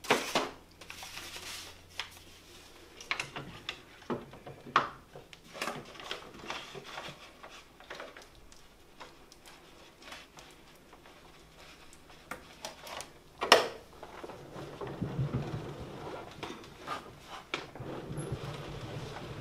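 Scattered clicks, knocks and rustles of a paper pianola roll being handled and fitted into the player piano's spool box, with one louder knock about two-thirds of the way through. A low, uneven rumble sets in near the end.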